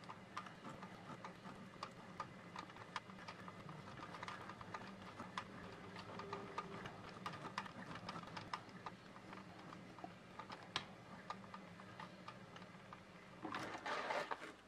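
Techsew leather sewing machine stitching through shoe-upper leather: quick, fairly even clicks of the needle and feed over a steady low motor hum. Near the end there is a louder rustling scrape as the leather is drawn out from under the roller foot.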